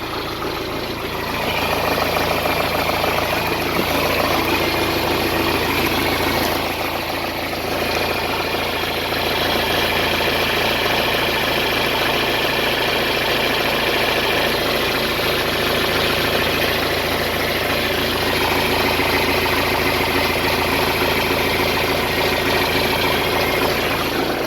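John Deere 410D backhoe's diesel engine running steadily, stepping up a little in loudness about a second and a half in.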